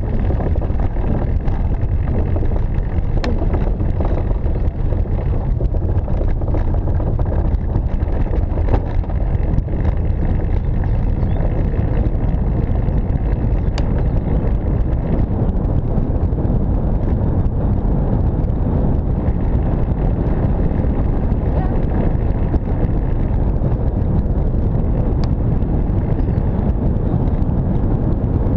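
Steady low rumble of wind buffeting the microphone and tyre noise from a velomobile rolling along a paved path.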